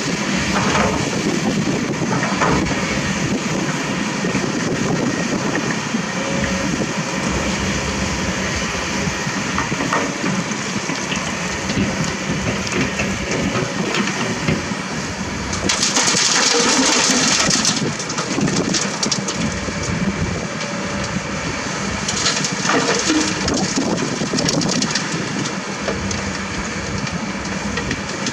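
Hydraulic excavators running while loading screened gravel and sand, with a constant rattling and scraping of stones against steel buckets and a dump truck bed. Just past halfway there is a louder hissing rush for about two seconds.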